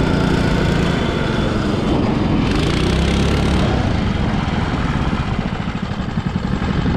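Small engine of a motorized snowboard running steadily, with a rushing noise about two and a half seconds in lasting around a second.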